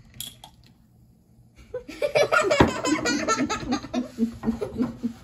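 A girl laughing hard from about two seconds in, after a few faint clicks, with a single knock partway through the laughter.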